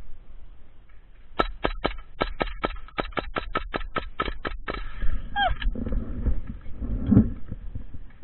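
Airsoft gun firing a rapid string of about seventeen shots, roughly five a second, starting about a second and a half in and stopping near the middle.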